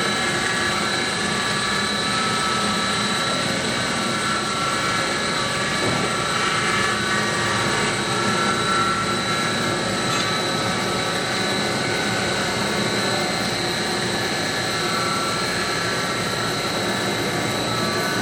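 Welding-electrode production line machinery running steadily: a constant loud mechanical din with a steady high whine over it.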